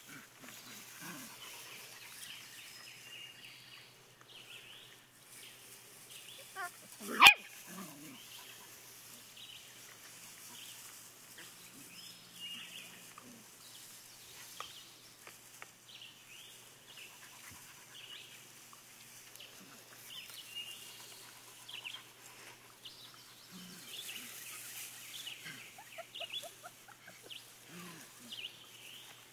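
Husky-shepherd puppies: one sharp, loud bark about seven seconds in, and faint high squeaks and whimpers scattered throughout.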